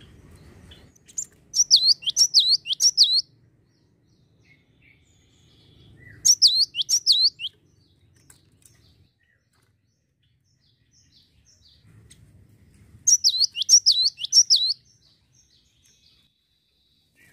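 Cinereous tit (gelatik batu) singing three bursts of song several seconds apart. Each burst is a quick run of four or five clear whistled notes that slide downward.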